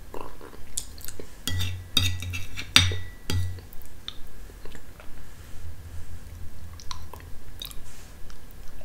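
A metal spoon clinking and scraping on a ceramic plate while scooping yogurt, with a cluster of sharp clicks between about one and a half and three and a half seconds in, and soft mouth sounds of eating yogurt in between.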